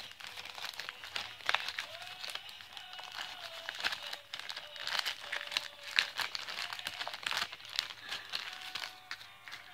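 A small plastic baggie crinkling as it is handled, with a run of irregular rustles and crackles.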